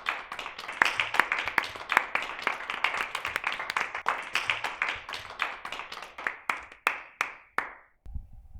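A small group of people clapping in quick, irregular claps that thin out and stop about seven and a half seconds in. A faint steady hum follows.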